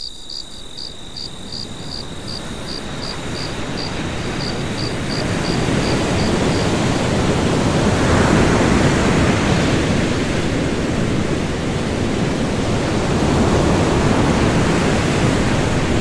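Crickets chirping at about three chirps a second over a growing wash of ocean surf. The chirping stops about six seconds in, and breaking waves swell and surge.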